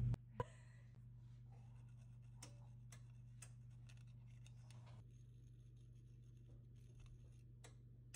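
Near silence over a steady low hum, with a sharp click about half a second in and a few faint light taps, as a metal spoon works cocoa through a fine mesh sieve.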